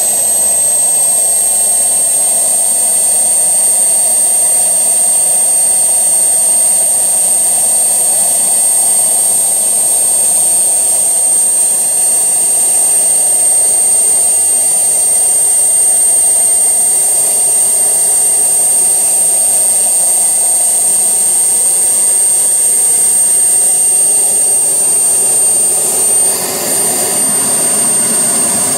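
Small model-jet turbine running with a steady high-pitched whine over a rushing exhaust noise; the whine edges up in pitch over the first two seconds, then holds.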